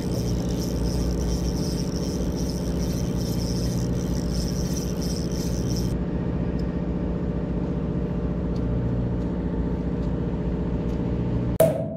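Steady low hum of a fishing boat's engine running, with a higher hiss that drops away about halfway through. A sharp click near the end, then the sound cuts off.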